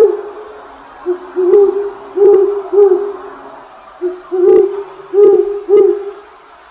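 A steady low hooting tone that swells louder about seven times, at uneven gaps of half a second to a second and a half, some swells coming in pairs and threes.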